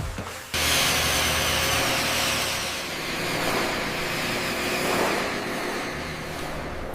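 A machine starts up about half a second in and runs with a steady hissing rush and a low hum underneath.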